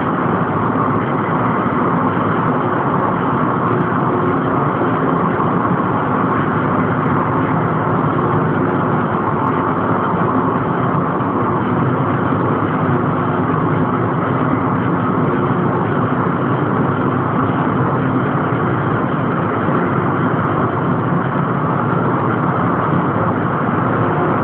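Steady, loud drone of offshore gas platform machinery, unbroken throughout, with faint steady tones running in it.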